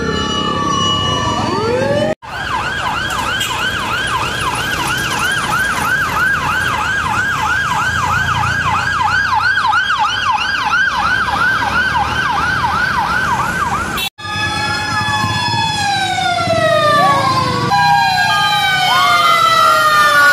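Fire truck and ambulance sirens passing, several wailing sirens gliding up and down over one another. About two seconds in, the sound breaks off and a fast yelp siren takes over, about three to four pitch sweeps a second. About fourteen seconds in, it breaks off again to several overlapping wails sliding in pitch.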